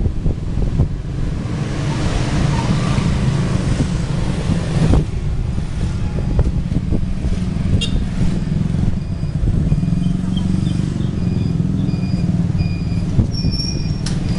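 Town street traffic heard from a moving cycle rickshaw: motor scooters and cars passing over a steady low rumble. A repeated high chirping tone sounds through the last few seconds.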